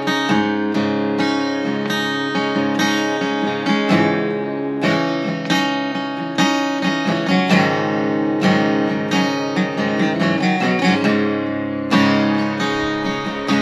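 Acoustic guitar strummed steadily in an instrumental passage of a song, with no singing.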